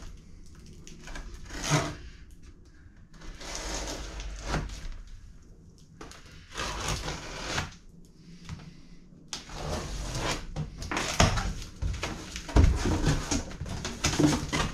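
A cardboard box being opened by hand: a run of irregular scraping and rustling as the box is handled, its tape worked loose and its flaps pulled open, busier in the second half.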